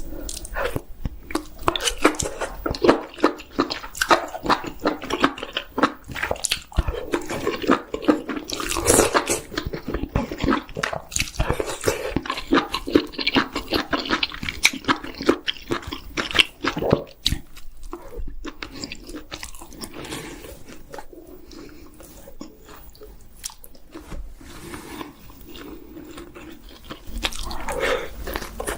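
A person biting and crunching into chicken, with chewing and wet mouth sounds. The crunching is dense at first and eases into quieter chewing after about 18 seconds.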